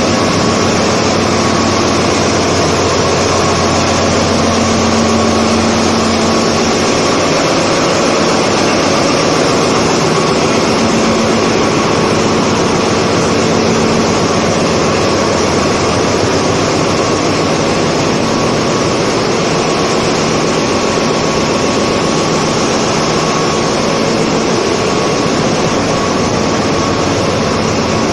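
Loud, steady din of a ship's engine room: diesel generator sets and engines running, a dense mechanical noise with a constant hum through it.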